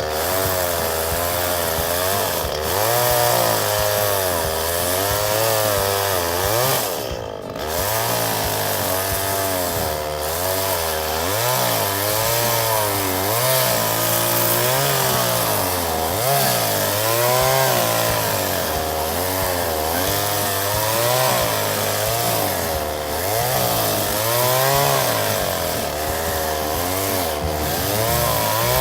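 Two-stroke chainsaw running and cutting wood, its engine pitch rising and falling as it works, with a brief drop in speed about seven seconds in.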